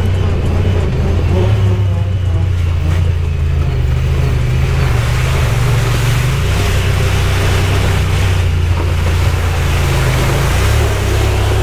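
Side-by-side UTV engine running steadily under way, a low drone that shifts slightly in pitch, with a rushing hiss over it that grows stronger about five seconds in.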